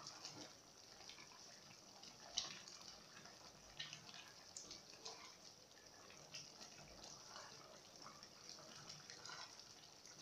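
Faint stirring of a wet chicken stew in an aluminium pot with a wooden spoon: soft, irregular scraping and squelching, with a few light knocks of the spoon.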